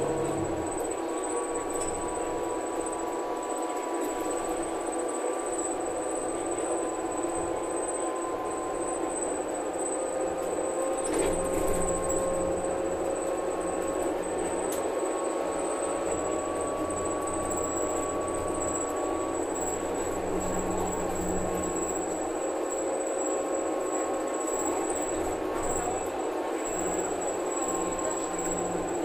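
Cabin noise inside a Bonluck JXK6120L-NGV natural-gas city bus under way: steady engine and drivetrain running with several whining tones that slowly rise in pitch. A single knock about eleven seconds in.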